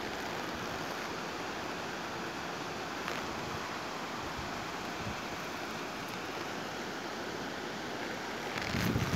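Steady rushing outdoor noise of wind and water, with wind buffeting the microphone in low gusts near the end.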